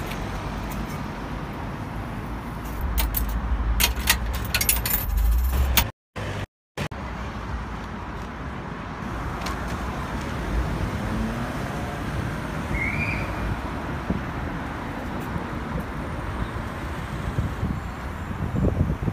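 Street ambience with steady road traffic noise. From about three to six seconds in, louder low rumbling and clicks come in, and then the sound cuts out twice, briefly.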